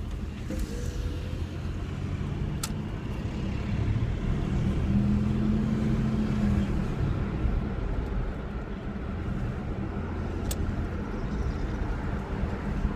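1985 Chevy C10 pickup's engine pulling away and accelerating, heard from inside the cab with the windows down. The engine note climbs for the first few seconds and then eases off, under steady wind and road noise, with two short sharp clicks.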